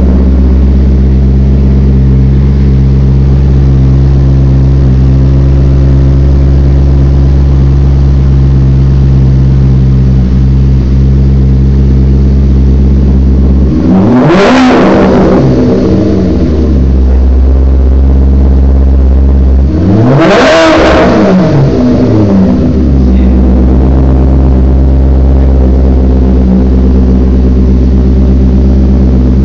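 2002 Maserati Spyder's 4.2-litre V8 idling loudly through a Larini X-pipe and sports muffler exhaust, revved twice, about halfway through and again some six seconds later, each rev climbing and dropping back to idle within a couple of seconds.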